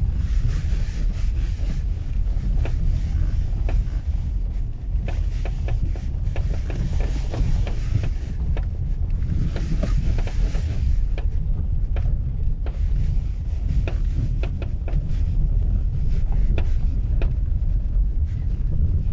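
Hyundai Santa Fe on the move, a steady low rumble of the running car and road with many short irregular knocks: the knock the owner is hunting for.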